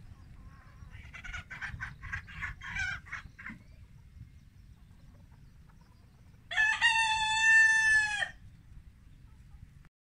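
Chickens clucking in a quick run of notes, then a rooster crowing once about six and a half seconds in: one long held call that drops at its end.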